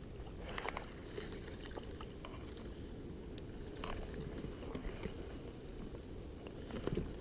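Wind rumbling steadily on the microphone, with scattered faint clicks and ticks.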